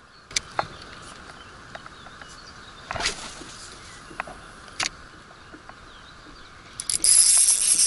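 A spinning reel (Tsurinoya FS 2000) starts whirring loudly about seven seconds in as it is cranked to retrieve the lure. Before that come a few light clicks and a knock about three seconds in.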